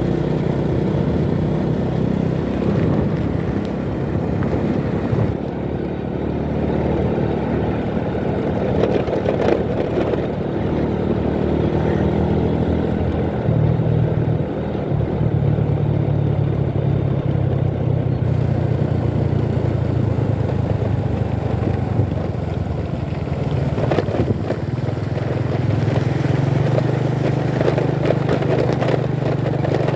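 Motorcycle engine running on the move, with road noise; the engine note shifts a couple of times.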